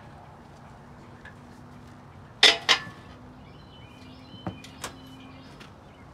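Two sharp metal clanks about a third of a second apart, followed a couple of seconds later by two lighter knocks: metal parts and tools being handled at the car's front end during an engine swap.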